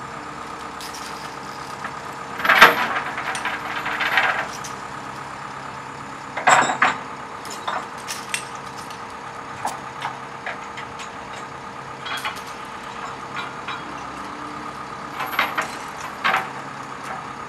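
Heavy diesel engine idling steadily, broken by sharp clanks and rattles now and then: a loud one about two and a half seconds in, another about six and a half seconds in, and a pair near the end.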